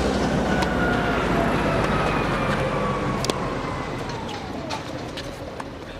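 A loud engine passing by, its pitch falling slowly and the noise fading as it moves away. Sharp tennis-ball strikes off racquets click over it, the loudest about three seconds in.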